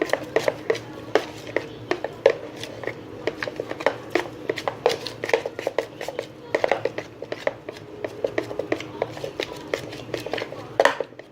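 A utensil stirring a thick, sticky flour-and-oil slime mixture in a bowl, clacking against the bowl in a rapid, uneven run of clicks, several a second.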